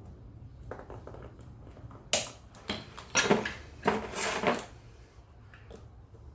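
Metal parts clanking and rattling as they are handled: light clicks, a sharp knock about two seconds in, then two bursts of clattering around three and four seconds in.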